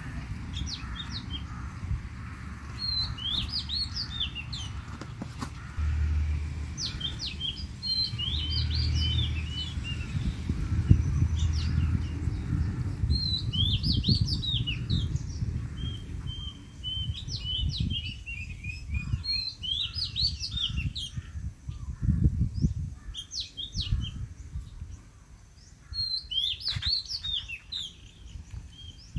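Small birds chirping in quick clusters of short, high notes, again and again, over a low rumble that is the loudest sound, with swells about a third of the way in and again about three quarters of the way in.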